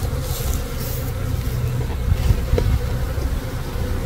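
A mass of honeybees buzzing in a steady hum from an opened nuc box, over a low rumble. A soft knock comes a little past halfway.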